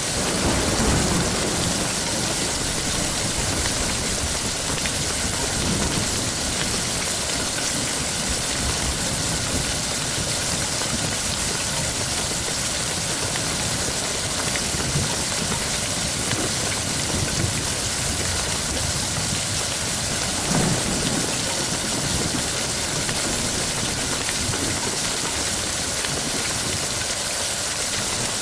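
Steady, heavy rain hissing, with a low rumble swelling just after the start and again about two-thirds of the way through.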